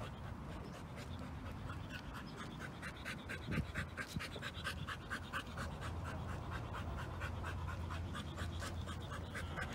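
A young pit bull panting rapidly, an even rhythm of quick breaths several times a second.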